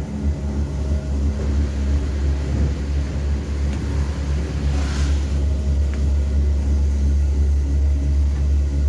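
Bulgur pounding machine running: two heavy grinding wheels rolling round a tub of wheat, driven by a motor, giving a steady low rumble and hum. A brief hiss about five seconds in.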